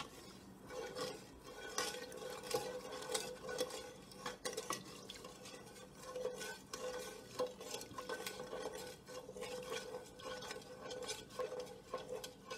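A wooden spoon stirring sugar into liquid in a metal pot, with irregular scraping and light knocks against the pot's sides and bottom.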